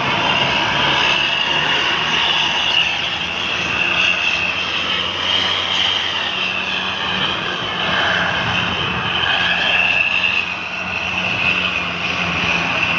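Road vehicles on the move: engines running steadily with road and wind noise, and a high whine that wavers slightly in pitch.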